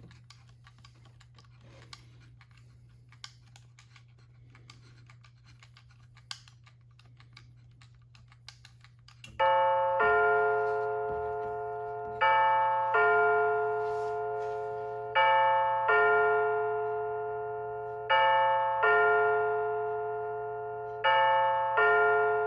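Faint irregular clicking as the time-setting wheel of a battery quartz clock movement is turned. About nine seconds in, the movement's electronic chime starts striking the hour. It is a two-note bell tone that rings and fades, repeated about every three seconds, five times.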